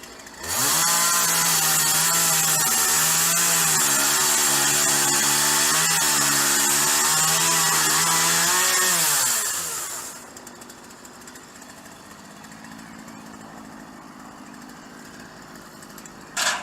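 A chainsaw running at high revs for about nine seconds, with slight wavers in pitch, then the revs fall away as the throttle is released. A short sharp sound comes near the end.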